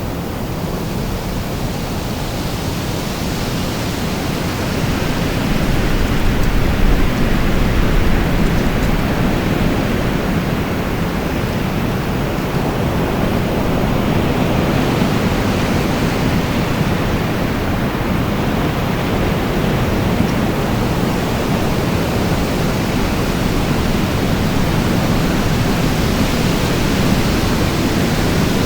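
Wind blowing in a steady, full rush, swelling a little about five seconds in and then holding, with slow shifts in its higher hiss.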